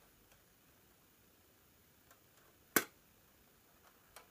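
A single sharp click about two thirds of the way in, with a few faint ticks before it and near the end: small plastic kit parts and tools being handled at a modelling bench.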